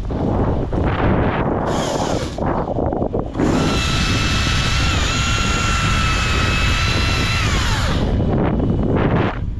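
Chainsaw running at high revs with a steady whine for about four seconds, dipping briefly partway through, then dropping off as the throttle is released, over a constant rumble.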